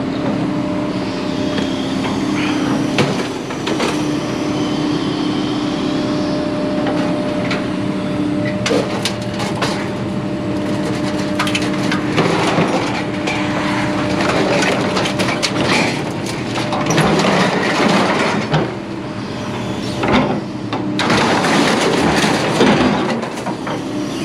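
A vehicle engine running steadily while scrap metal is handled, with repeated sharp clanks, knocks and stretches of rattling clatter, busiest about halfway through and near the end.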